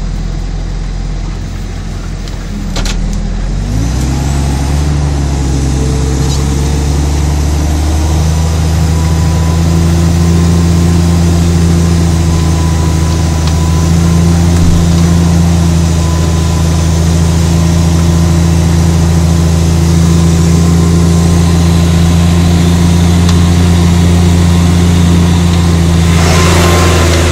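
Case IH Puma 155's six-cylinder diesel engine working under load as the tractor pulls a mounted reversible plough, heard from inside the cab. The revs rise about three seconds in, then the engine runs steadily.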